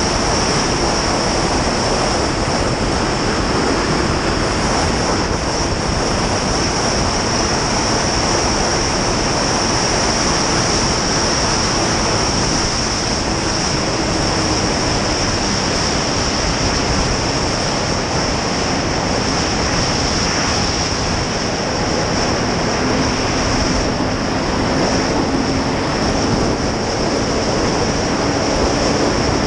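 Snowmobile running steadily at cruising speed, its engine and track noise mixed with a heavy rush of wind over the microphone.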